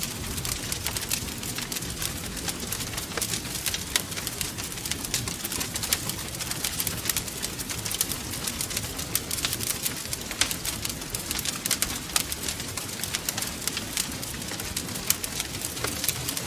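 Wood fire burning in a fireplace: a steady stream of sharp, irregular crackles and pops over a low rumble of the flames.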